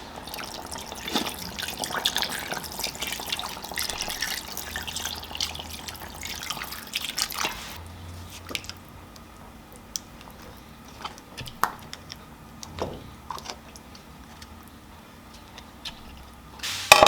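Fish pieces frying in hot oil in a pan, sizzling with many small crackles and spatters. It is densest for the first half, then settles to a quieter hiss with scattered pops.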